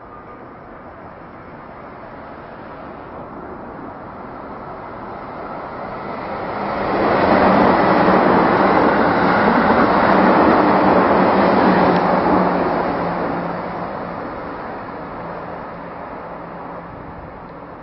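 JR Central 371 series electric train passing at speed on the Tokaido Line: the rumble of its wheels on the rails builds over several seconds, is loudest for about five seconds as it goes by, then fades as it recedes.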